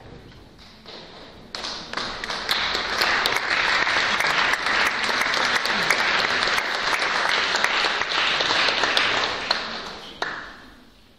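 Audience applauding: a dense clatter of many hands clapping that swells about a second and a half in, holds, and dies away near the end.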